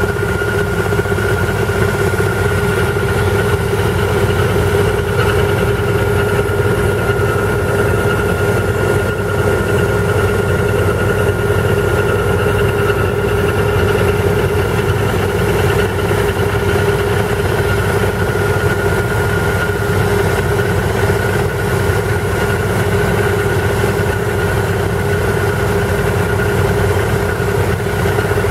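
Steady machine drone from pneumatic drilling work: a towed Ingersoll Rand air compressor running under load, feeding Airmobil 432 drill rigs drilling into the rock slope. A constant hum and a higher whine hold unchanged throughout.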